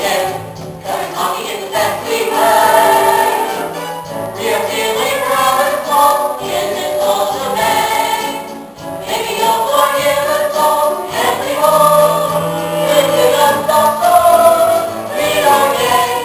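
Student cast singing together as a choir in a musical-theatre finale number, with musical accompaniment.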